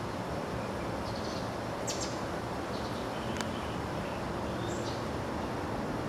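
Steady outdoor background noise with a few faint, short bird chirps scattered through it, and a single sharp click about three and a half seconds in.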